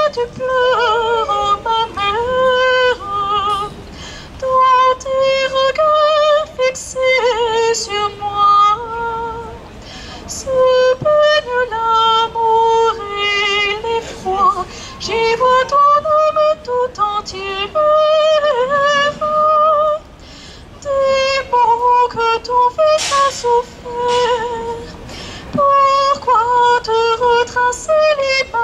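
A solo female cantor singing unaccompanied into a microphone, holding long notes with vibrato in phrases separated by short breaths.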